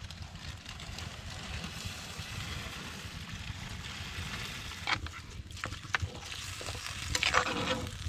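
Curry bubbling and sizzling in a cast-iron camp oven beside a wood fire, a steady hiss, as the lid is lifted off. A few sharp metal clinks about five to six seconds in, then a louder clatter near the end as a spoon goes into the pot to stir.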